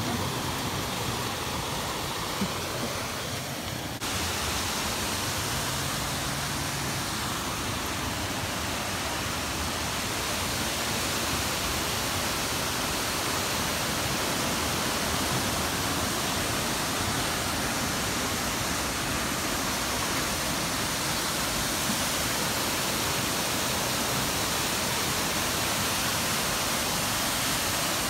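A waterfall's steady rush of falling water. About four seconds in it turns brighter and slightly louder.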